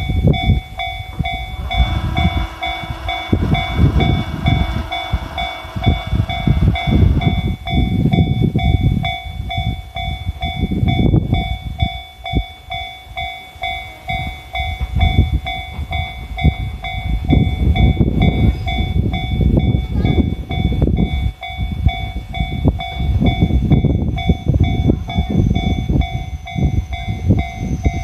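Japanese railway level-crossing alarm ringing steadily in rapid, evenly repeated strokes. A horn sounds for about five seconds near the start. A heavy, irregular low rumble runs underneath.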